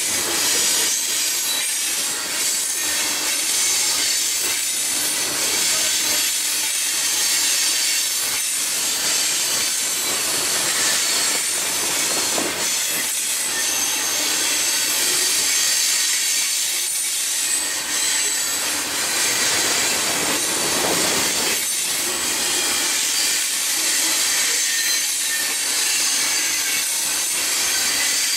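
Freight train's covered hopper cars rolling past close by: a steady wheel-on-rail rushing noise, strongest in the high pitches, with faint high steady tones over it.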